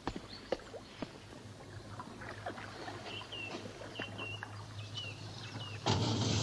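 Scattered light knocks and clicks of someone handling gear aboard a small cabin boat, with a few short high chirps in the middle. Near the end a steady rushing noise with a low hum cuts in suddenly.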